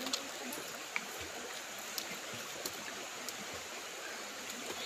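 Steady rushing of a flowing stream, with a few faint clicks scattered through it.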